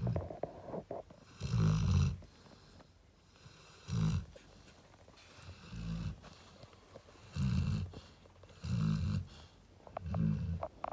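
A cane corso snoring in a steady rhythm, a low snore about every second and a half.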